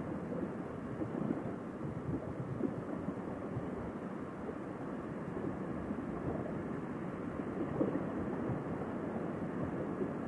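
Steady muffled rush of wind and riding noise on a moving motorcycle, picked up by a Sena SMH10 helmet intercom microphone; no clear engine note stands out.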